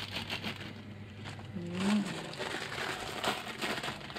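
Water boiling and bubbling in a steel pot while a block of dried instant noodles drops in and its plastic packet crinkles, with a short low hum about two seconds in.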